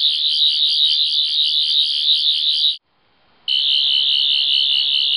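Sonic screwdriver sound effect: a loud, high electronic warbling whine that wavers rapidly. It cuts off a little under three seconds in and starts again about half a second later.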